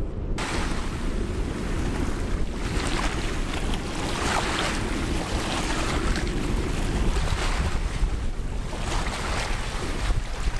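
Small waves on the Thames washing and breaking on the shore, swelling in repeated surges every couple of seconds, with strong wind rumbling on the microphone. The wash of water starts abruptly just after the start.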